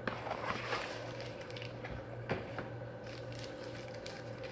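Quiet handling of a paper-wrapped drone battery: faint rustling of the paper wrapping and small clicks, with one sharper tick about two seconds in, over a steady low hum.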